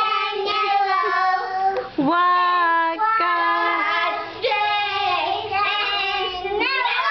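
Several young children singing together, with long held notes.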